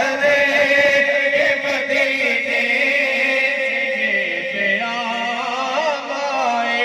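A man singing an Urdu naat into a microphone, drawing out long held notes that waver and bend in ornaments, amplified through a sound system.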